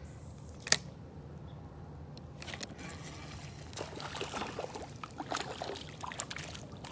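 A hooked fish splashing and thrashing at the water's surface while it is reeled in, in irregular bursts through the second half. A single sharp click comes about a second in.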